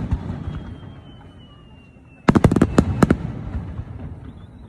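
Fireworks display: a rapid cluster of sharp bangs and crackles about two seconds in, fading away afterwards. Before it comes a quieter spell with a faint falling whistle.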